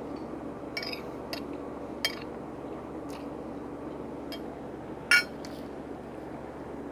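Cutlery clinking against a dish while eating, several light clicks with one louder, ringing clink about five seconds in, over a steady low background hum.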